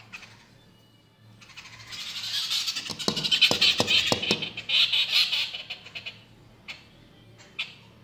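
Jungle babblers chattering in a loud, dense burst of harsh squeaky calls lasting about four seconds, mixed with rapid wing flutters and a few sharp taps against the window glass. A couple of single clicks follow near the end.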